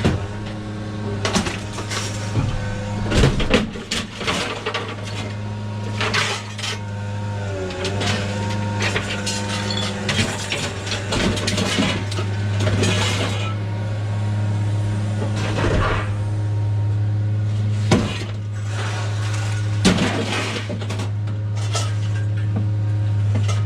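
Hammer striking scrap metal: irregular metallic clanks and knocks a second or several apart, over a steady low hum.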